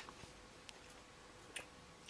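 Near silence: room tone with a faint steady hum and a few faint ticks, one about a third of the way in and one about three quarters in.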